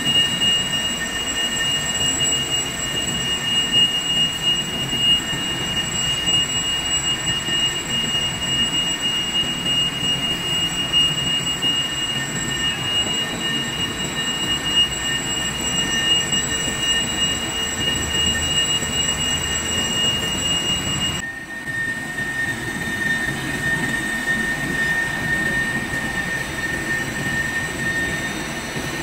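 Large lathe cutting a steel pressure-pad ring, the tool peeling off long blue chips: a steady high-pitched squeal from the cut over the rumble of the machine. About two-thirds of the way through, the sound changes abruptly and the squeal continues at a lower pitch.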